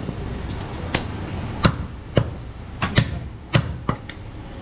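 Butcher's cleaver chopping through a goat leg on a wooden chopping block: about seven sharp, unevenly spaced chops.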